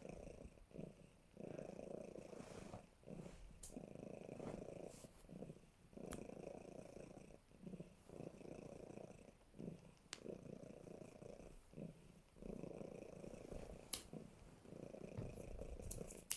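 Cat snoring faintly in its sleep, a rough purr-like rasp that comes and goes with each breath in a steady rhythm.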